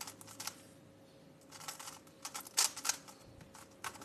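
Plastic 3x3 speedcube being turned by hand: short bursts of quick clicking layer turns, one near the start and a longer run of rapid clicks in the middle.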